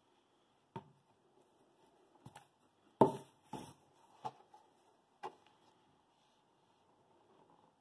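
Handling noise: a few short taps and knocks as a sock puppet and a sheet of drawing paper are moved about on a wooden tabletop, the loudest knock about three seconds in.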